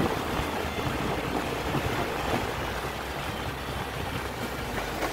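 Steady rush of air over the microphone mixed with road noise from riding along a street.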